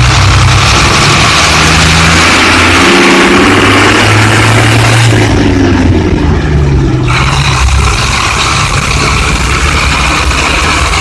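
Ashok Leyland bus's Hino diesel engine running under load, heard loud and unmuffled through the open engine cover in the cab. Its note dips about three seconds in and falls and rises again between about five and seven seconds in.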